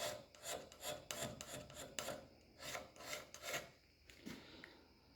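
A hand scraper working a cast iron lathe slide: short rasping strokes, roughly two a second, that thin out near the end. This is rough scraping to break up the high spots and raise the contact points on the mating surface.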